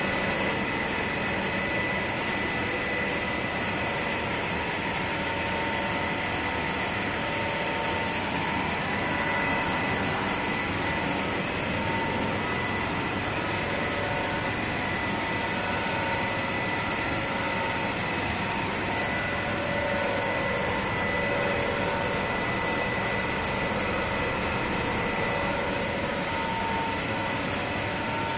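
Dry pet food extrusion line machinery running: a steady mechanical drone and hiss with a constant high tone over it.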